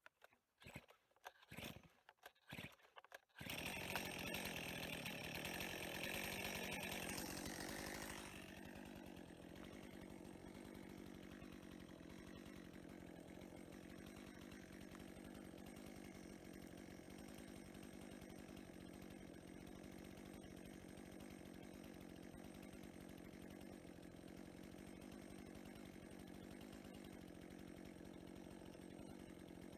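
Chainsaw engine: a few clicks of handling, then the engine catches about three seconds in. It runs faster and louder for several seconds, then settles to a steady idle.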